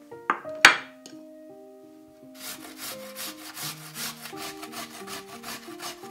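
A peeled raw potato being grated on a stainless steel box grater, in quick rasping strokes about four a second. Before it, about half a second in, come two sharp knocks as a plate is set down on the wooden board; the second knock is the loudest sound.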